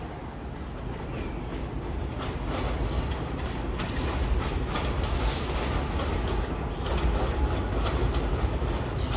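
New York City subway train running over a curved elevated steel structure: a heavy low rumble that grows louder as the train comes closer, with brief high squeals from the wheels on the curve.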